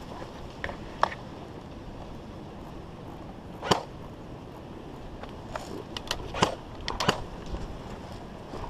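Airsoft guns firing single shots: one loud crack about four seconds in, then a cluster of five or six quicker cracks a couple of seconds later.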